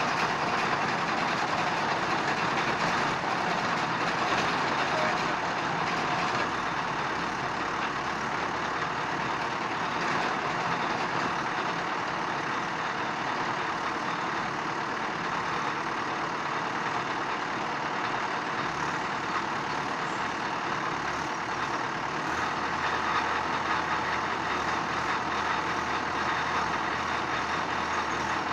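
A machine running steadily, a continuous engine-like noise that holds the same level throughout, with a slight change in the low end about two-thirds of the way through.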